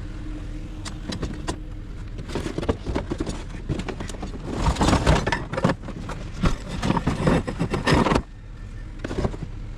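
Irregular clattering and rattling of scrap being handled, loudest from about two seconds in and stopping abruptly near the end, over the steady low hum of an idling car engine.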